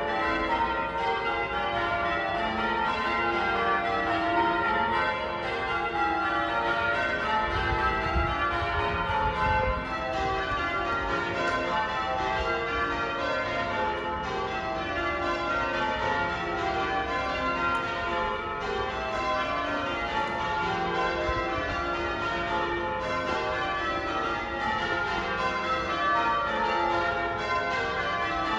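Wakefield Cathedral's church bells being rung in changes: a continuous, rapid sequence of bell strikes falling in repeated runs from high to low. A brief low rumble comes about eight seconds in.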